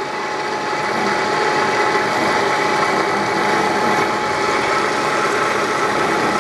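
Bridgeport/Hardinge EZ Vision CNC milling machine jogging its Y axis: the axis drive turns the screw and moves the table with a steady whine over even mechanical running noise. The screws run quietly, a sign of a machine in good order.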